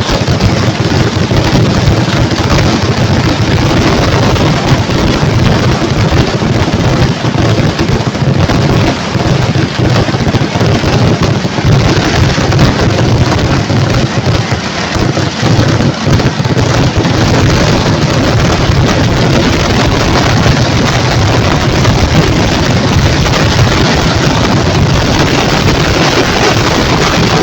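A dense, continuous barrage of firecracker bangs, so rapid that they merge into one unbroken loud din with no pauses.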